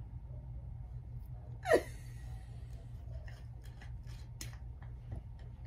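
Faint clicks and scrapes of a screw cap being twisted on a glass liquor bottle, after one short vocal sound about two seconds in, over a steady low hum.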